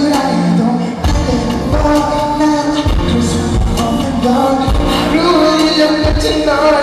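Loud live pop music with a singing voice over a band and a heavy low beat, played over a concert sound system.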